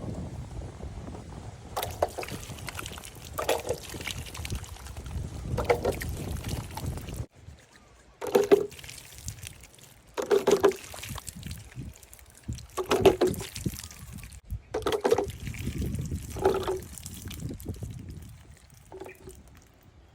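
Water sloshing and splashing in separate bursts about every two seconds, after a stretch of rustling that cuts off suddenly about seven seconds in.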